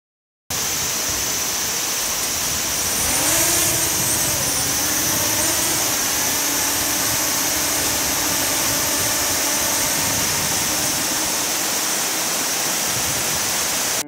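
Small quadcopter camera drone's propellers buzzing steadily, starting about half a second in, with a whine that rises in pitch about three seconds in and keeps wavering.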